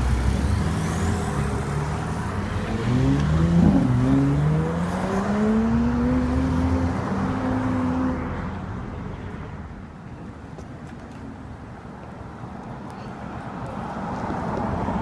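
A performance car engine accelerating away. Its pitch rises, drops at a gear change about four seconds in, then climbs again before the sound dies away over the last several seconds.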